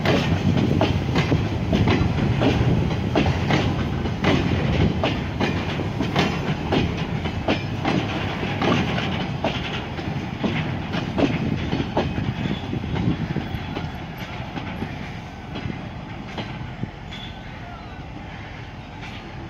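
Freight wagons' steel wheels clicking over rail joints in a steady clickety-clack as the train rolls past. The clicks fade as the train draws away in the second half.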